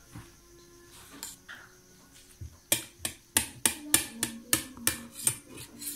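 Metal spoon clinking against a stainless steel plate: about a dozen quick, ringing strikes, roughly three a second, from about halfway through, after a few faint taps.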